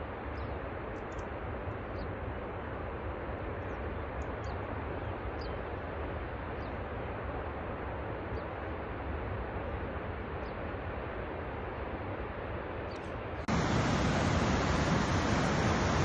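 Steady rushing noise of the Tsitsa Falls waterfall heard from across the gorge, with a few faint high chirps. A little over thirteen seconds in it cuts abruptly to a louder, fuller rush of water close beside the falls.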